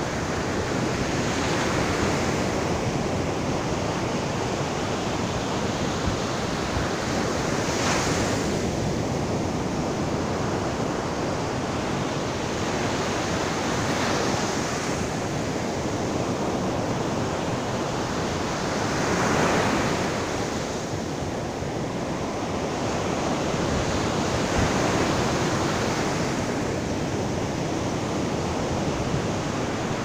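Ocean surf breaking and washing up a sandy beach: a steady rushing wash that swells each time a wave breaks, about every five to six seconds.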